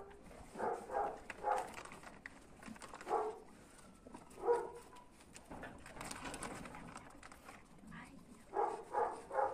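Dogs giving short, excited barks and yips in small clusters, about a second in, again around three to four and a half seconds, and near the end, as they beg for treats.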